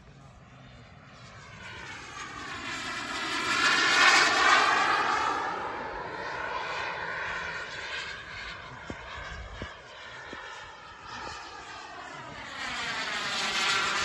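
IAD Designs Serpent radio-controlled model airplane flying passes overhead, its motor and propeller note swelling and fading with a pitch that rises and falls as it goes by. It is loudest about four seconds in and comes round again near the end.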